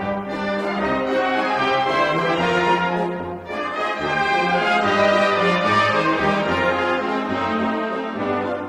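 Background instrumental music led by brass, with slow sustained notes and a short dip about three and a half seconds in.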